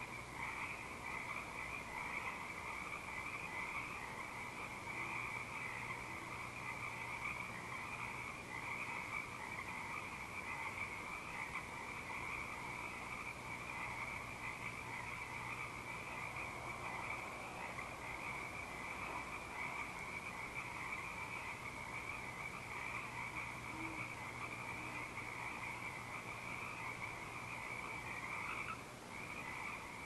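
A dense chorus of many frogs calling together in full night song, a steady unbroken din with a brief lull near the end.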